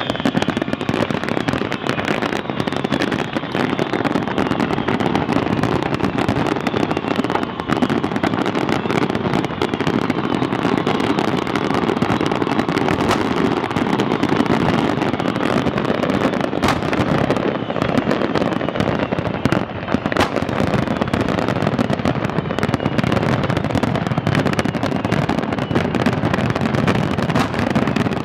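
A large professional aerial fireworks display firing a dense barrage: many shells bursting at once in an unbroken run of bangs and crackling, with a few sharper cracks standing out.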